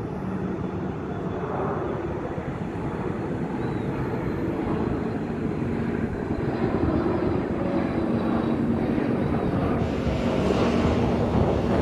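Boeing 737 jet airliner passing low overhead on approach with its landing gear down, the engine noise growing steadily louder as it nears.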